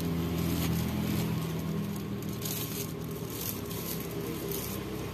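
Eating sounds: crinkling of a thin plastic food glove and chewing as grilled chicken is handled and bitten. Under them runs a steady low hum.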